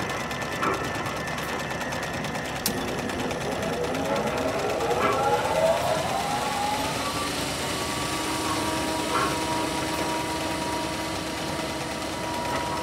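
Sewing machine running with a steady mechanical whir. Starting about three seconds in, several tones rise together into a climbing whine, which then settles into a steady hum. A few sharp clicks fall through it.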